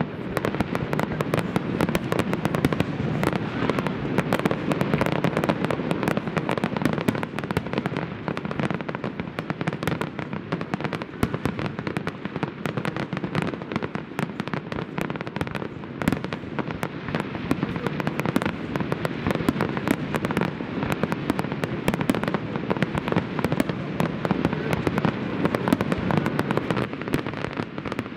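Fireworks display: aerial shells bursting in a dense, unbroken series of bangs, pops and crackles.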